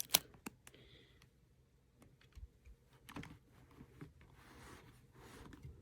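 Faint, scattered light clicks and taps of a plastic fan body and its remote being handled, with a slightly louder click about three seconds in.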